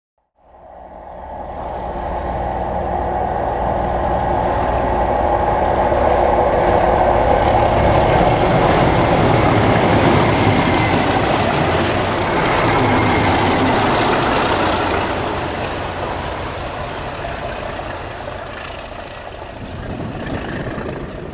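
Class 37 diesel locomotive with its English Electric V12 engine hauling a track maintenance machine past at close range. The engine and wheel noise builds up, is loudest at about the middle, then fades as the train moves away.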